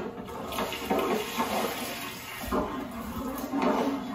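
Liquid pouring in a stream from a vessel into a large cooking pot of masala, gushing and splashing.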